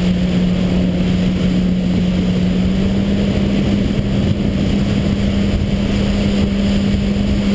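WaveRunner personal watercraft engine running at a steady cruising speed, a constant hum whose pitch edges up slightly a few seconds in, over the low rumble and hiss of the hull running across the water.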